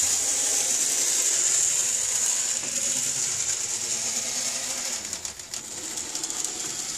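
Small motors in N gauge motorised diecast model trams whining at a high pitch as the trams run fast around the track, with faint rattling of the wheels on the rails.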